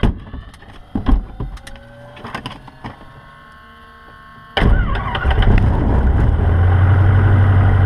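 Cessna 150's four-cylinder Continental O-200 engine starting in the cabin: after a few clicks and knocks of switches and controls, it catches suddenly about halfway through, runs up unevenly for a moment, then settles into a steady idle.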